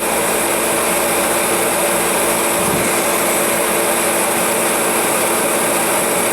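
Sears torpedo heater test-run with a new spark plug fitted: its electric motor and blower fan run steadily, a loud even whir over a strong airy hiss, cutting in abruptly at the start.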